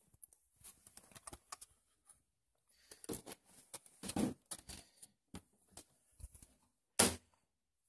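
Light handling noise: scattered small clicks, taps and rustles, with one sharper click about seven seconds in.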